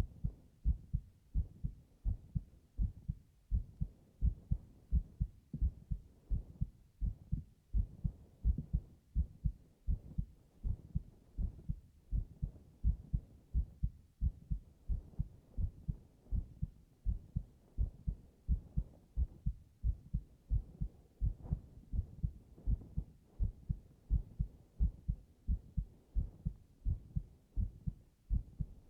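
A man's heartbeat heard close up, a steady lub-dub rhythm of paired low thumps.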